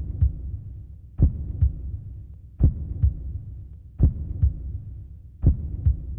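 Slow heartbeat: a paired low thump, lub-dub, about every second and a half, four beats in all, over a steady low hum.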